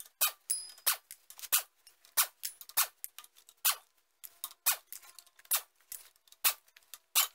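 A quick, irregular run of about twenty sharp metallic clicks and clanks as the half-inch bolts of a Dana 30 axle's differential cover are taken out with an air impact wrench.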